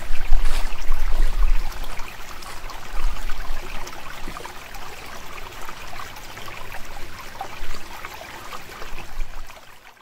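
Footsteps crunching through dry fallen leaves on a forest path, a dense crackle of leaf litter with low thuds of footfalls, louder for the first few seconds and then growing fainter.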